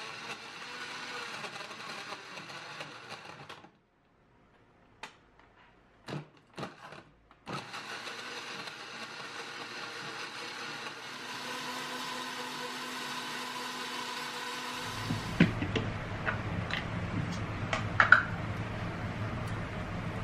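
Countertop blender motor running as it blends berries and milk into a smoothie. It stops for a few seconds with a few clicks, then runs again for about seven seconds. Near the end come knocks and clinks of glass as the smoothie is handled and poured into a glass jar.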